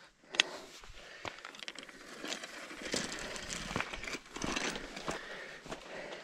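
A hiker's footsteps on a mountain trail, irregular noisy steps with rustling, and a sharp click about half a second in.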